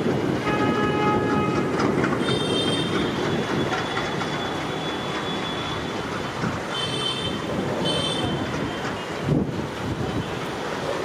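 A pair of ALCO diesel locomotives approaching with a steady low engine rumble. A multi-tone horn sounds for about a second near the start, and brief high-pitched squeals come a few times later.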